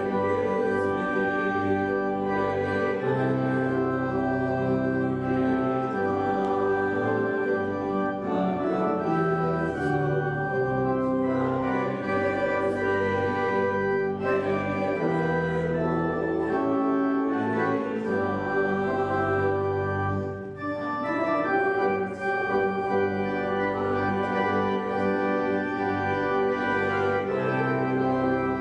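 Church organ playing sustained chords in a slow hymn-like passage, with a brief break between phrases about twenty seconds in.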